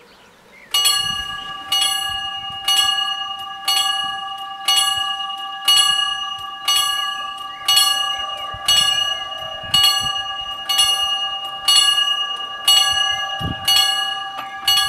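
Railway level-crossing warning bell starting up about a second in, then striking steadily about once a second, each strike ringing on and fading before the next: the crossing has activated for an approaching train.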